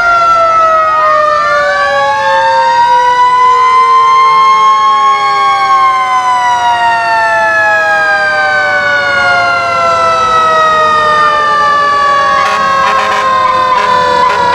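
Several fire truck sirens wail at once, their pitches overlapping and rising and falling slowly over several seconds. Near the end comes a quick run of sharp clicks.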